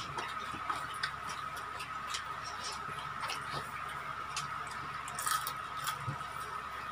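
Eating sounds: chewing and scattered small crackles and clicks as people tear and eat crispy fried chicken by hand, with a little cluster of crackles about five seconds in. A steady high-pitched hum runs underneath.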